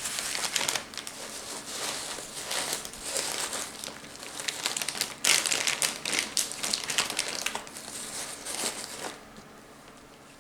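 Crinkling and rustling of gift-basket wrapping and packaging being handled, a dense run of crackles that is loudest about five seconds in and dies away about nine seconds in.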